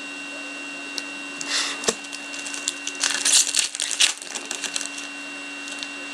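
Foil wrapper of an SPX hockey card pack crinkling and tearing as it is opened by hand, in a short burst about a second and a half in and a longer one from about three to four seconds in. A steady low electrical hum runs underneath.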